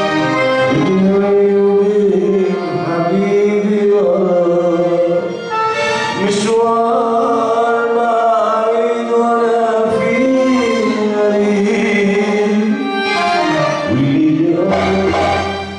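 Live Arabic band playing: a male singer over keyboard melody and darbuka drums.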